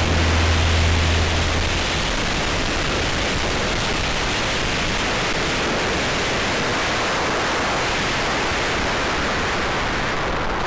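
Steady rushing wind and road noise on the microphone of a motorcycle-mounted camera at riding speed. Low music tones carry on for about the first two seconds, then stop.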